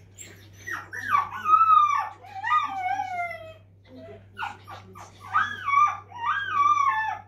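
A 9-week-old rough collie puppy whining and crying, with high-pitched drawn-out whines that fall in pitch. They come in two bouts with a short pause about halfway. It is the distress of a puppy unhappy at being shut in his pen.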